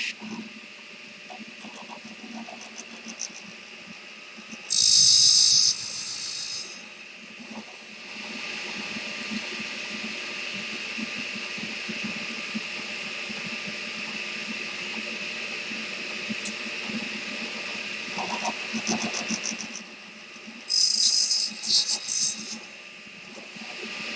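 Table saw running steadily, cutting through wooden dowel rods twice: each cut is a loud, shrill burst lasting under two seconds, the first about five seconds in and the second near the end.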